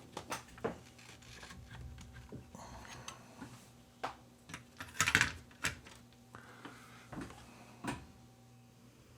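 Scattered light clicks and knocks of test gear being handled on a workbench, with a cluster of louder knocks about five to six seconds in and another near eight seconds, over a faint steady hum.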